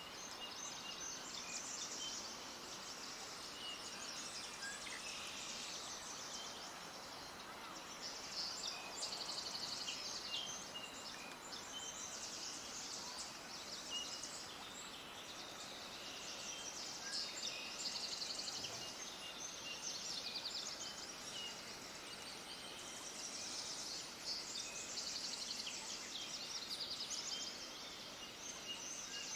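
A dense chorus of many small birds chirping and trilling together, with rapid high-pitched chirps overlapping continuously over a faint steady outdoor hiss.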